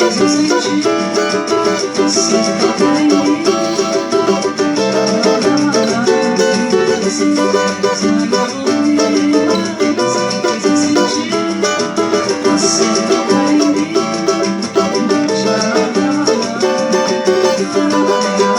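Cavaquinho strummed in a samba-pagode rhythm, moving through the song's chord changes without singing.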